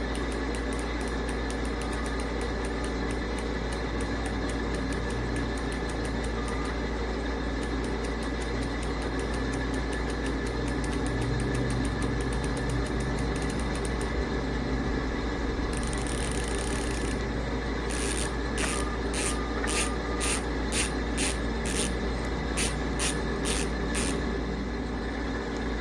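A bicycle hub's freehub ratcheting as it is spun: 6 pawls with 72 engagement points give a fast, continuous buzzing click. In the last several seconds, louder pulses of clicking come about twice a second.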